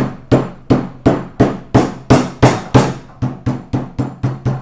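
Rubber mallet striking a rag-covered plastic plate on a grease pump, pounding it down to seat it, in a steady run of about three blows a second. The last few blows are a little lighter.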